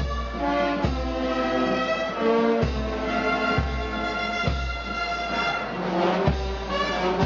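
Procession brass band playing a slow march: held brass chords over a low bass drum beat that comes roughly once a second.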